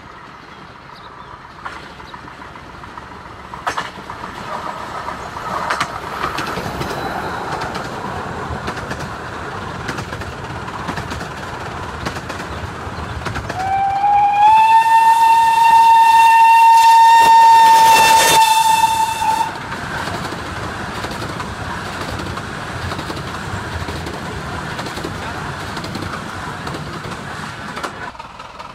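A 15-inch gauge steam train running past close by, the wheels rattling on the rails. About halfway through, the locomotive's steam whistle slides up briefly and then holds one steady note for about five seconds.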